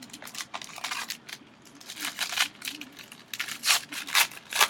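A trading-card pack wrapper being crinkled and torn open by hand: a run of short crackling, tearing strokes, the loudest few near the end.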